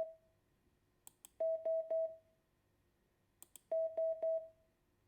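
Morse code letter O (dah-dah-dah) sounded as a steady single-pitch beep, three long beeps to a group, repeated about every two seconds. Each group is preceded by two sharp clicks.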